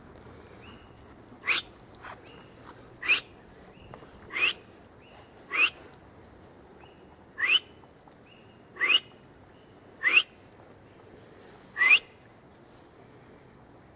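A series of eight short, sharp whistles, each sweeping quickly upward in pitch, spaced about one to one and a half seconds apart. They are loud and close, and most are followed by a faint, lower answering tone.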